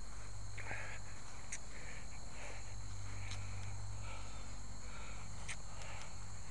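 Insects chirring steadily outdoors over a constant low hum, with a few soft footsteps and rustles as someone walks.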